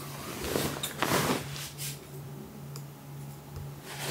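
A kitten and an older cat scuffling on bedding: a few short noisy bursts, the loudest about a second in, with a few faint ticks.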